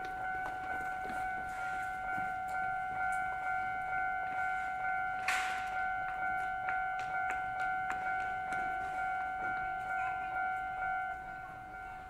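Japanese railway level-crossing warning bell ringing steadily, an electronic two-tone ding repeating about twice a second, easing a little near the end. A brief rushing noise cuts across it about five seconds in.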